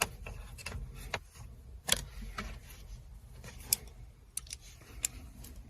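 Irregular light clicks and ticks of a hand screwdriver working small screws into a metal bracket, the loudest about two seconds in and again near the middle.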